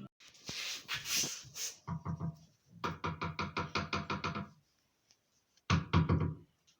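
A short scraping hiss, then rapid knocking in several runs of strokes about eight a second.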